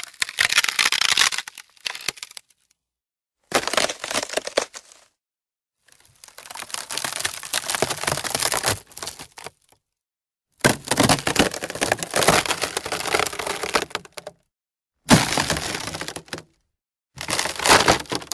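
Wood and foliage crackling and snapping in six separate bursts, each one to three seconds long, with complete silence between them.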